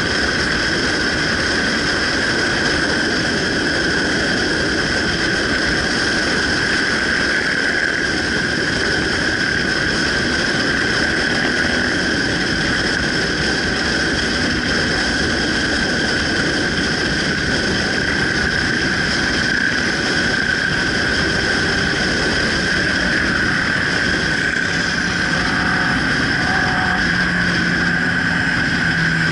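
Steady riding noise from a camera on a moving motorcycle: wind rushing over the microphone and the engine running, with a constant high whine laid over it.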